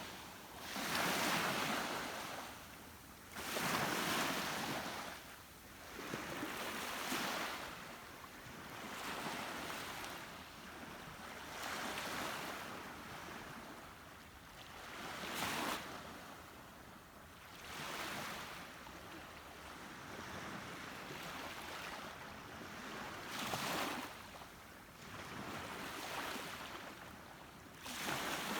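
Sea waves washing in, the noise swelling and falling back every few seconds, with some wind.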